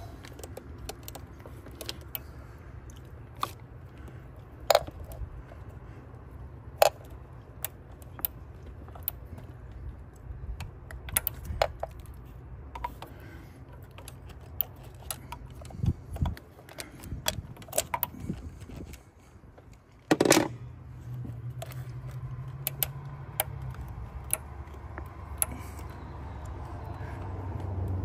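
Metal hand tools clinking and tapping against engine-bay hardware as a wrench and socket work a small nut and bracket: irregular sharp clicks, with one louder knock about twenty seconds in, over a steady low hum.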